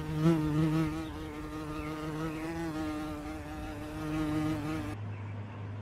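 A flying insect buzzing steadily, its pitch wavering slightly, cutting off suddenly about five seconds in; a low hum follows.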